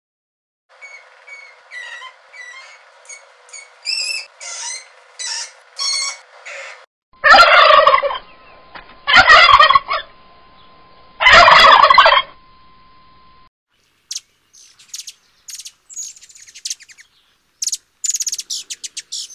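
A golden lion tamarin's run of high chirps, then a white domestic turkey gobbling loudly three times, about two seconds apart. Near the end, a hummingbird's rapid high twittering.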